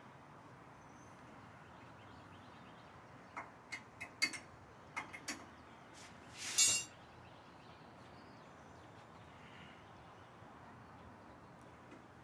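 Elliptical parts and hand tools being handled during assembly: a quick run of sharp clicks and clinks, then one louder scraping clatter lasting about half a second.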